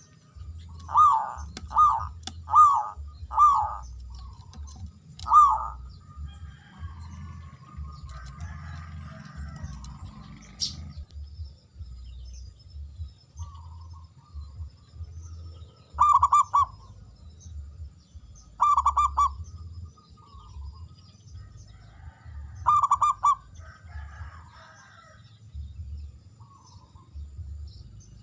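Zebra dove (perkutut) cooing: four short coos about a second apart, one more a couple of seconds later, then three longer trilled phrases a few seconds apart. Other birds chirp faintly in between.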